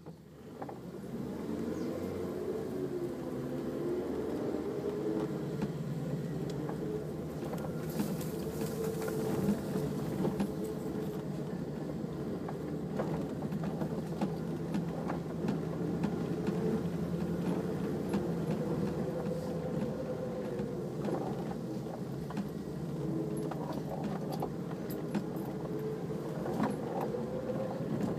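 Off-road 4x4's engine running at low speed, its pitch rising and falling slowly with the throttle, with scattered light rattles and knocks from the vehicle working over rough ground.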